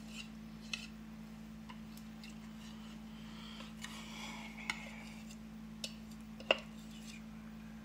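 A kitchen utensil scraping and tapping against a mixing bowl as brownie batter is scraped out: faint scrapes with a few sharp clicks, the loudest about six and a half seconds in. A steady low hum runs underneath.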